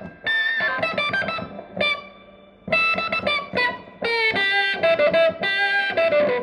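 Electric guitar played through a transistor octave fuzz pedal: phrases of distorted single notes, each rich in upper harmonics, with short gaps between phrases and a few longer held notes near the end.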